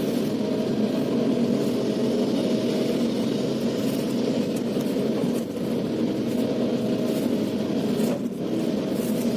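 Kobelco SK380XDLC excavator's diesel engine running steadily under working load, with a few faint knocks.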